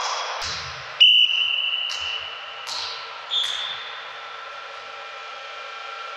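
A referee's whistle blown in one long steady blast about a second in, then a shorter, higher whistle tone about two seconds later.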